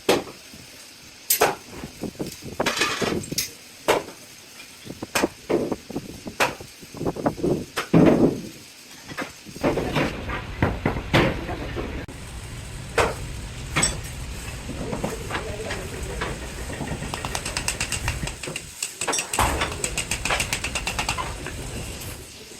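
Irregular metal clanks and knocks, like hammer strikes on metal. About ten seconds in, a steady low machine rumble starts under them.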